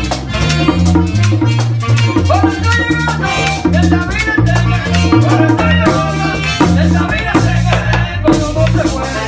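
Live merengue típico band playing: saxophone and button accordion carry a melody over a repeating bass line, with drum and shaken percussion keeping a fast, even beat.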